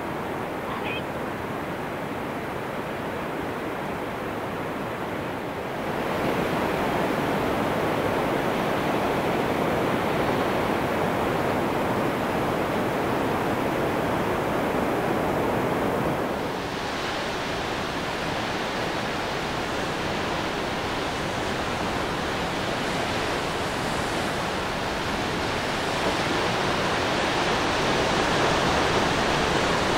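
Steady rushing of water, like surf or falling water, with no voices or music. It changes abruptly twice, getting louder about six seconds in and brighter about sixteen seconds in.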